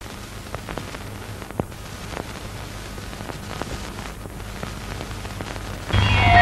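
Steady hiss and scattered crackles of an old, worn film soundtrack over a low hum, then the song's instrumental music starts loudly near the end.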